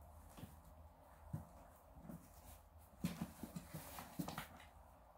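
Kittens' paws tapping and scrabbling on a cardboard box and a wooden floor: scattered faint knocks and scratches, busiest about three to four and a half seconds in.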